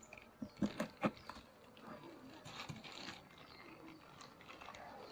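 Four or so sharp knocks in the first second or so, then a plastic bag rustling while Apis cerana honeybees buzz faintly.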